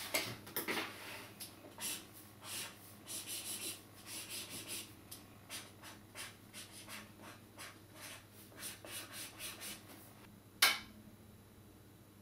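Pen scratching on a paper notepad in many short strokes, crossing out a word and writing a new one, with paper handling at the start and one louder sharp sound about ten and a half seconds in.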